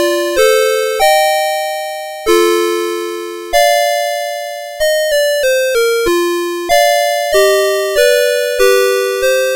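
CITIZEN Melody Box 30 melody alarm clock playing one of its built-in tunes on its electronic sound chip: a melody over a simple accompaniment, each note starting sharply and fading. The notes come about one a second, with quicker runs of notes around the middle and near the end.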